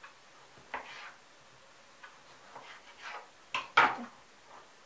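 Kitchen knife cutting through a tomato and knocking on a wooden cutting board: several short, separate cuts and taps, the loudest about four seconds in.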